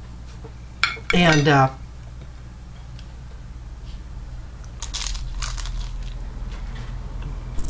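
An eating utensil clinking against a dish: a few quick light clinks about five seconds in.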